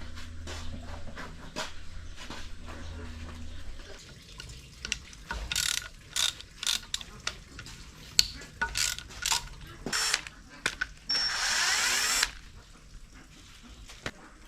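Hand tools and metal parts of an Isuzu 4JJ1 engine clicking and clinking during disassembly, with a steady low hum over the first few seconds. Near the end comes a rush of noise about a second long, with a thin high whine in it.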